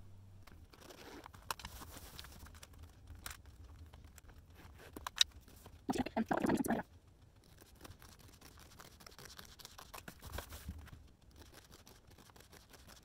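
Rustling, scraping and small clicks of a diamond painting canvas being handled and cut with scissors, with a louder rustle about six seconds in.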